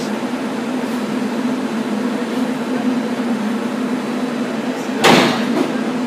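Steam line in an underground utility vault giving one loud, sharp pop about five seconds in, over a steady low hum, as the steam system is being brought up at start-up. The repeated popping worries the crew.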